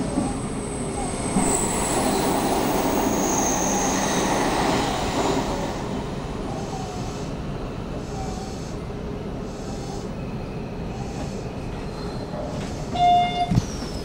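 Hanshin Railway electric train running along the track with a high wheel squeal, loudest in the first few seconds and then easing off. A short, loud electronic beep sounds near the end.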